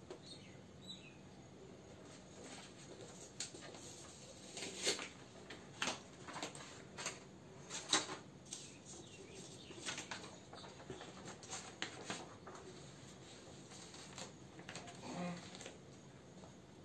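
A sheet of printed paper rustling and crackling as it is handled and pressed against a whiteboard, in a run of short irregular crackles and taps, busiest in the middle.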